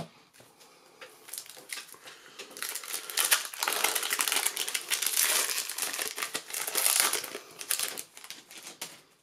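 Foil wrapper of an Iconic Masters booster pack crinkling as it is torn open and pulled apart by hand, for about five seconds from a few seconds in, after a few light clicks of cards being handled.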